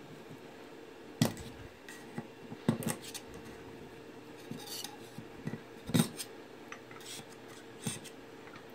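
A cured resin print being pried and scraped off a metal 3D-printer build plate: a handful of sharp clicks and scrapes as the print and its supports come free, the loudest about six seconds in.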